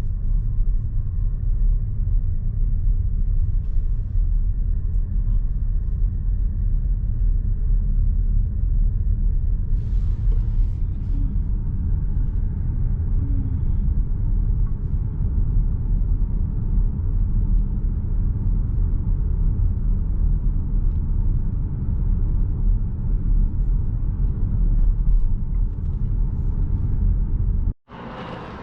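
Steady low rumble of a car driving along the road: engine and tyre noise. It cuts off abruptly near the end.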